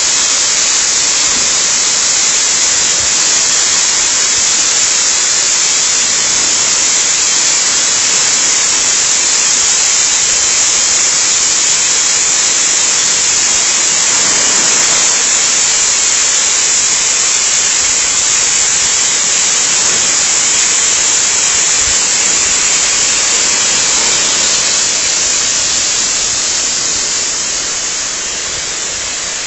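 Waterfall rushing: a loud, steady wash of falling water that eases off slightly near the end.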